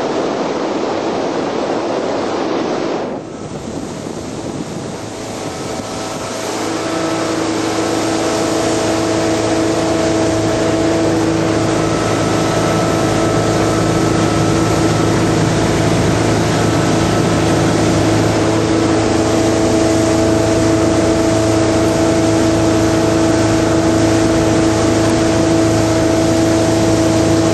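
Bayliner 1750 runabout's engine running steadily while the boat is underway, with wind and water rush. A loud, even rush of wind fills the first three seconds, then the engine hum builds over a few seconds and holds steady.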